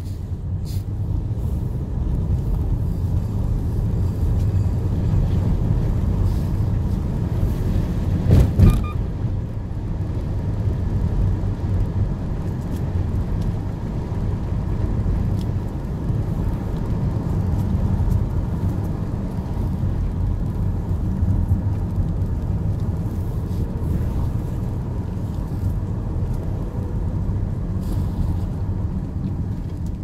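Steady low rumble of a car driving slowly on a paved road, heard inside the cabin: tyre and engine noise. A single sharp knock about a quarter of the way in.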